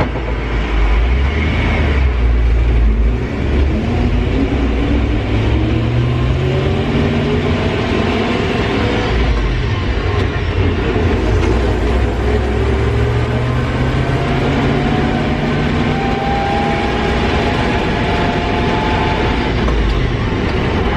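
Chevy 350 V8 in a 1969 Jeep M715 accelerating under load, heard from inside the cab. The engine pitch climbs and falls back as the manual gearbox is shifted up, with a clear drop about ten seconds in.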